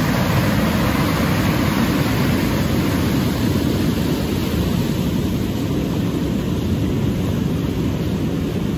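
Muddy river water rushing in whitewater rapids over sandstone ledges: a loud, steady, deep rush with no breaks.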